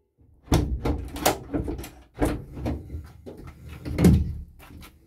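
Ford Transit Custom van door being unlocked and opened: the hook lock and door latch give a series of clunks and clicks. The heaviest thud comes about four seconds in.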